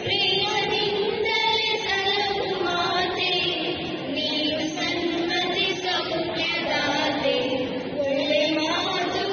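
A small group of mostly female voices singing a song together, with smooth sustained and gliding notes.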